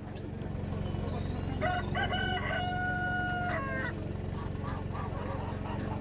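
A rooster crows once, a call of about two seconds that starts a little over a second and a half in, with a few short opening notes and then a long held note. A steady low hum runs underneath.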